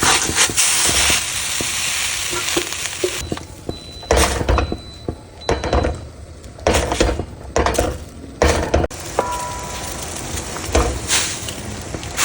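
Food sizzling in hot oil in a pan, loudest for the first few seconds, with a spatula stirring and scraping against the pan in several short strokes.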